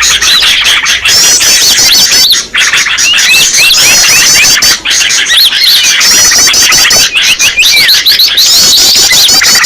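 A bird-trapping lure recording of many small songbirds chirping and calling at once: a dense, unbroken mix of quick, high, sliding chirps and short twittering phrases.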